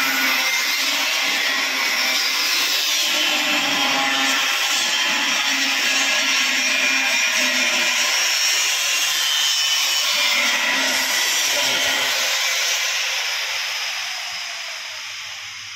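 Handheld angle grinder cutting steel, a steady, harsh, high grinding noise that dies away near the end.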